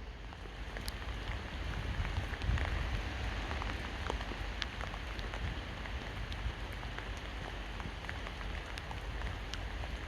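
Steady rain falling on surfaces, with many separate drops ticking and a low rumble underneath.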